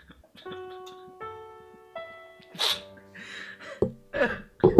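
Slow piano notes playing, one after another. About two and a half seconds in there is a sharp breathy burst, and near the end a run of short vocal bursts.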